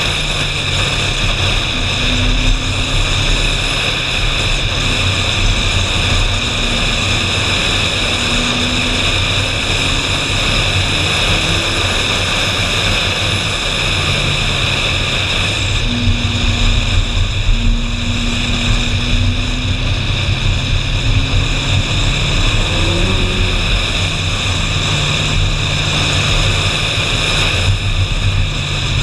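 Steady rush of wind and road noise on a camera mounted outside a Ferrari 458 Spider, with the car's 4.5-litre V8 running underneath. The engine note rises briefly about three-quarters of the way through.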